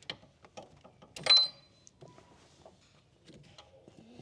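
Wrench and metal hand tools clicking and knocking against the injector line fittings on a 6.7L Powerstroke diesel engine, with one sharp metallic clink about a second in that rings briefly.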